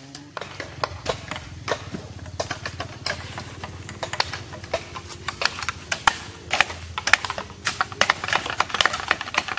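Irregular sharp knocks of hand tools chopping and hacking at ground and brush, several strikes a second at times, over a steady low engine hum.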